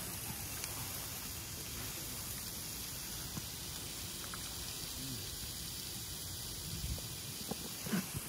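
Pork belly sizzling on a camping grill: a faint steady hiss, with a low rumble of wind on the microphone underneath.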